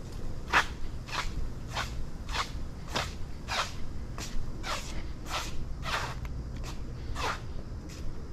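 Footsteps of a person walking on a concrete walkway at a steady pace, about three steps every two seconds, over a low steady rumble.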